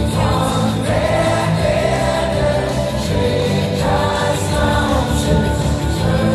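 Live band music with several voices singing a German song, played loud over a hall's loudspeakers.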